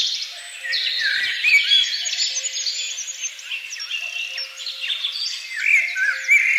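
Dense chorus of many songbirds chirping and trilling over one another, with quick rising and falling notes, over a faint low tone that returns about every second and a half.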